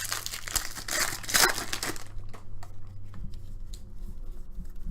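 Plastic wrapper of a trading card pack being torn and crinkled for about two seconds, then a few faint clicks as the handling goes on.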